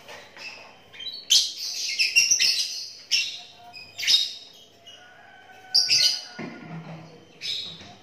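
Caged lovebirds calling in shrill, high chirps: a quick chattering run in the first half, then a few single calls.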